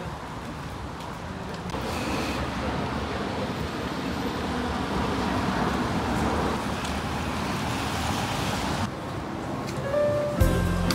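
Road traffic noise: a steady rush of tyres and engines that swells over the first few seconds and cuts off sharply near the end.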